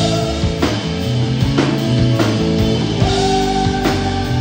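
Live rock band playing: electric guitar and drums, with a male voice singing. A long held note comes in about three seconds in.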